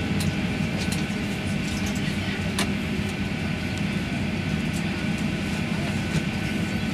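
Steady drone inside a Boeing 737 cabin on the ground, with a low hum underneath and a few faint ticks, one sharper click about two and a half seconds in.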